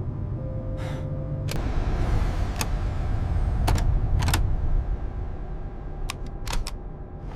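Sound-effect bed of a spaceship cockpit: a steady low hum with a brief steady tone near the start, then a rush of hiss from about a second and a half in, with several sharp clicks.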